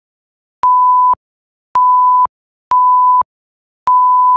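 Four short electronic beeps, each a steady tone of one pitch lasting about half a second, spaced about a second apart with silence between.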